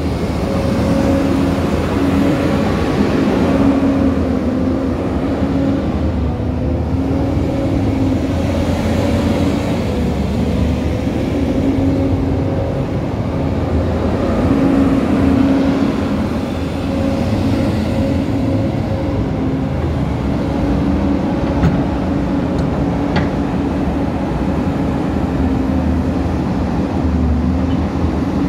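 Caterpillar 320DL tracked excavator's six-cylinder Cat C6.4 diesel engine idling steadily, a constant engine hum with a low rumble beneath it.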